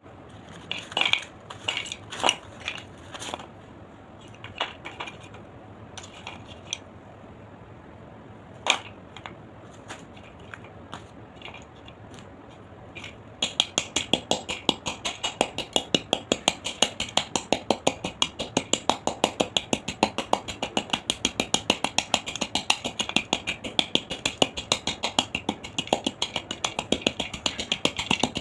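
Clay cracking and crunching. In the first half come scattered sharp cracks at irregular intervals; from about halfway there is a dense, even run of crisp crunches, several a second.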